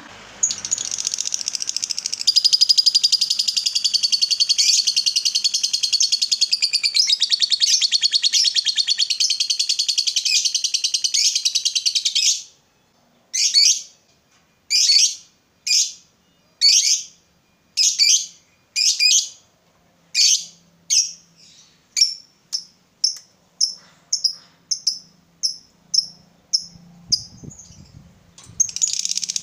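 Lovebird singing its long 'ngekek' chatter: a continuous rapid, high-pitched trill for about twelve seconds. After a short pause come separate sharp calls, about one a second at first and quickening to about two a second, before another long trill starts near the end.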